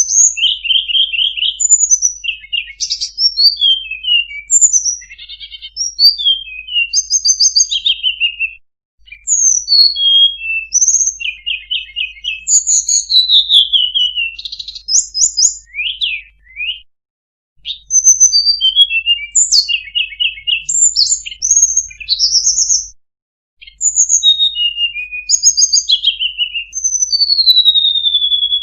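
A tledekan gunung songbird singing a long, varied song of rapid trills, quick rising and falling slides and clear whistles, broken by three short pauses.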